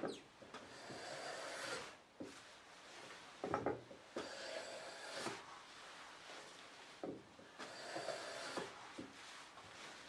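Japanese hand plane (kanna) cutting along a wooden board: three smooth, even strokes, each about a second and a half long, with a couple of short knocks in the gaps between them.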